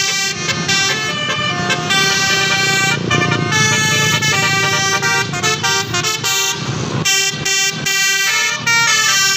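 A tourist bus's multi-tone "telolet" air horn playing a melody, its notes changing every fraction of a second, over passing traffic. A brief rush of noise cuts in about two-thirds of the way through.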